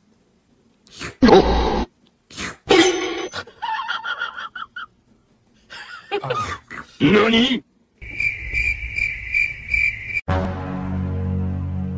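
A few short pitched voice-like sounds, then a high chirping that repeats about three times a second for two seconds, then music with a steady low drone.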